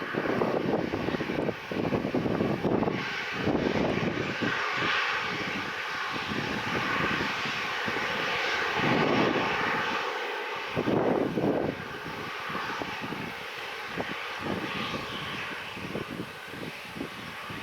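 Airliner engines running steadily as an aircraft moves on or near the runway, a drone with a few held whining tones, while wind buffets the microphone.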